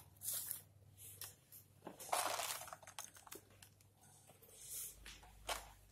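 Raw glutinous rice poured by hand into a folded dong-leaf wrapper over a layer of mung beans: the grains hiss and patter against the leaves in a few short, faint bursts.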